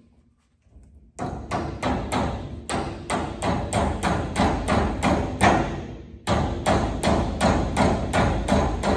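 Hammer blows on steel, driving a pin into the pivot of a brush hog's tail wheel: a fast run of sharp, ringing metal strikes, about three a second, with a brief pause about six seconds in.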